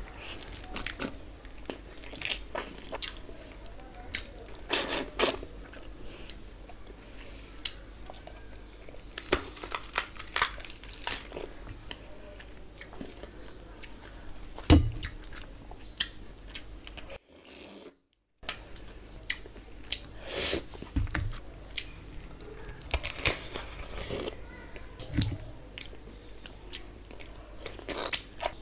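Close-miked eating by hand: wet chewing and lip smacking with many short, sharp clicks as rice, curry and fish head are eaten. One louder knock comes about halfway through, and the sound cuts out completely for about a second a little later.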